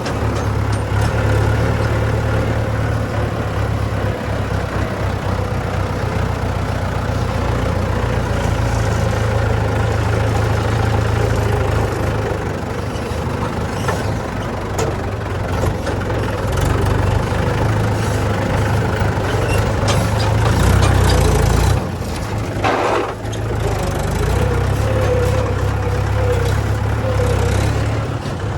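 Heavy diesel engine of earthmoving machinery running steadily, working harder around twenty seconds in, with a brief rushing noise just after.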